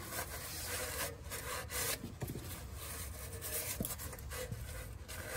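A paper towel dampened with rubbing alcohol being rubbed back and forth over a rusty car exhaust pipe, a scratchy wiping sound in uneven strokes.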